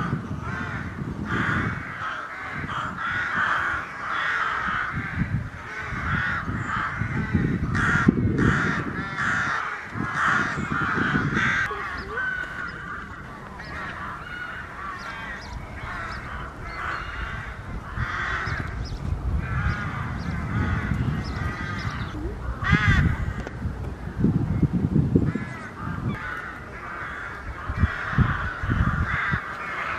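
A colony of rooks cawing at their rookery, many calls overlapping in a continuous chorus, with a low rumble underneath that swells at times.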